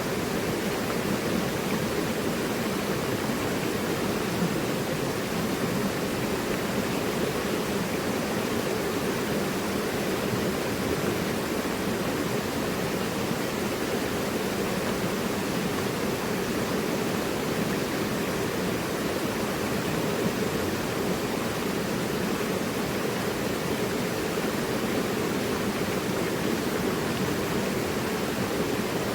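Mountain river rushing over rocks in a steady, unbroken flow.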